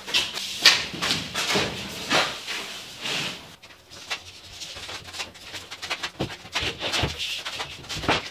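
Plasterboard sheets being handled and stacked on a concrete floor: irregular knocks, taps and scrapes.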